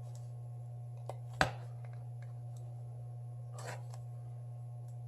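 A few short clicks and a brief scrape from a thin metal pry tool working between the glued panels of a Samsung Galaxy S7 Edge; the sharpest click comes about one and a half seconds in. A steady low hum runs underneath.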